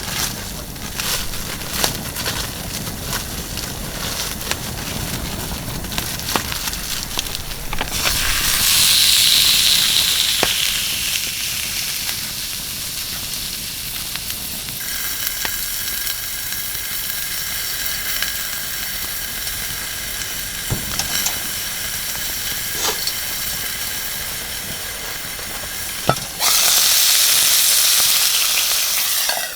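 Wood fire in a mesh fire pit crackling with scattered pops, under a loud rushing hiss. The hiss swells about eight seconds in and again near the end, where it stops abruptly.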